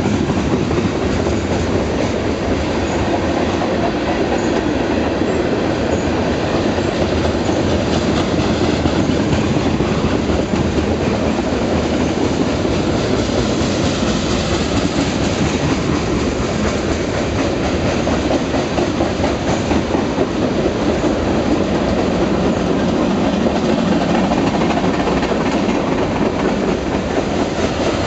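Freight train's tank cars and gondolas rolling past close by: a steady, loud noise of steel wheels running on the rails.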